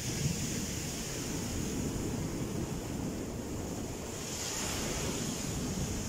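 Rough sea surf breaking and washing over a rocky shore, a steady churning rush of whitewater. The hiss of a breaking wave swells about four seconds in.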